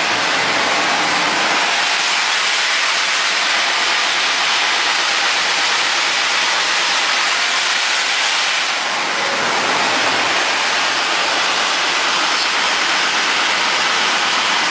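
SH2213(R-RP) wide double-belt sander running steadily with a loud, even rushing hiss, dipping slightly about nine seconds in.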